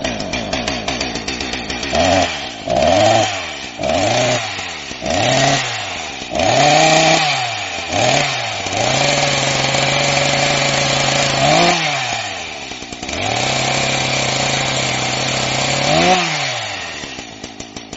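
Chainsaw engine idling, then revved in about five quick bursts of throttle. It is then held at high speed twice for a few seconds each, with a short rev between, and drops back toward idle near the end.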